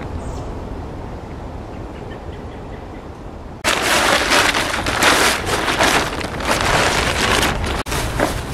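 Synthetic fabric rustling and crinkling loudly as camouflage and grey outdoor gear is shaken out and handled, starting abruptly about three and a half seconds in. Before that there is only a low, steady rumble.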